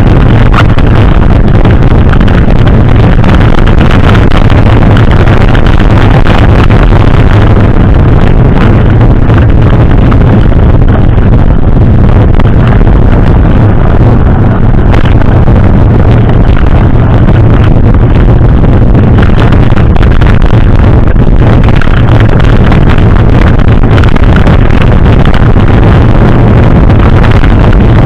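Loud, steady wind buffeting and rumble on the microphone of a camera carried on a moving mountain bike.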